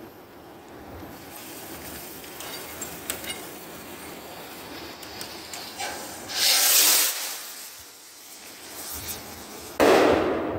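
Firework rocket going off: a sharp hissing whoosh as it launches about six seconds in, then a sudden loud bang as it bursts overhead near the end, fading quickly.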